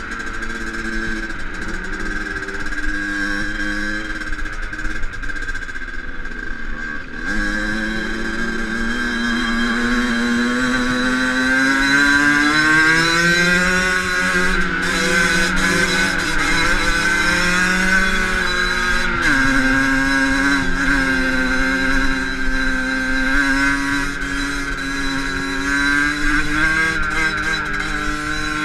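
Fantic Caballero 50 two-stroke dirt bike engine heard up close while riding. Its note dips, climbs slowly for several seconds, then drops sharply about two-thirds through and holds steady as the throttle and gears change.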